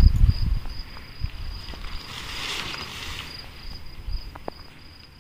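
Crickets chirping in a steady, even pulsing series. A low rumble on the microphone in the first second, a soft rustle about halfway through and a few small clicks near the end.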